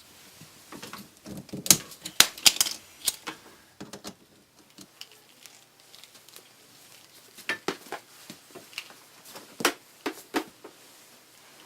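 Sharp clicks and clacks of small hard objects knocking, in a cluster about one to three seconds in and another from about seven and a half to ten and a half seconds in.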